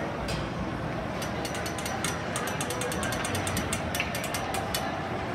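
Ice hockey rink sounds: a rapid run of sharp clicks and clacks, typical of sticks and puck on the ice, from about a second in until shortly before the end, over a steady background of arena noise.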